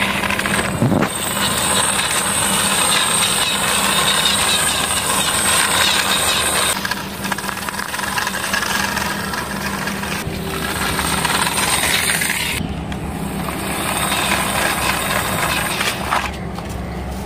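Plastic toy army jeep pushed by hand along a concrete wall ledge, its hard plastic wheels rolling and grinding on the rough surface. It comes in several long pushes with short breaks between them.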